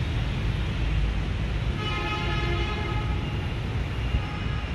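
A distant vehicle horn sounds one steady held note for about a second and a half midway through, over a steady low outdoor rumble.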